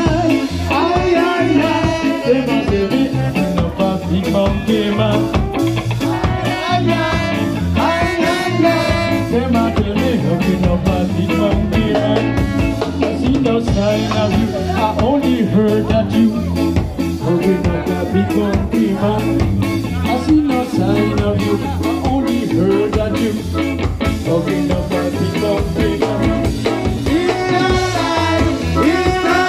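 A ska band playing live, with a drum kit, horns and a singer over a steady beat.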